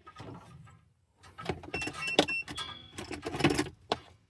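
Handling noise as a multimeter is taken out and readied: irregular clicks and rustling, with a few very short, high electronic beeps about halfway through.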